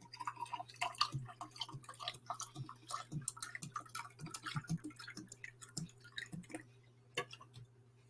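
Whiskey glugging and dripping in a rapid, irregular run of small gurgles as a shot is poured from the bottle, ending about two-thirds of the way through, with a couple of light clicks near the end.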